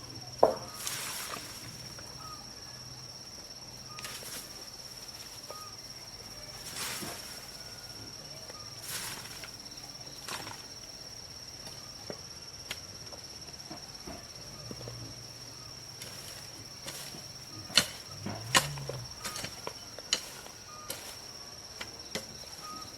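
A steady high-pitched drone of insects, with scattered knocks and scrapes every few seconds, the sharpest about a second in and again later on.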